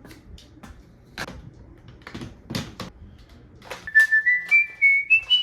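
A few sharp plastic clicks and knocks, then near the end a run of short, high whistle-like squeaks, each a little higher in pitch than the one before.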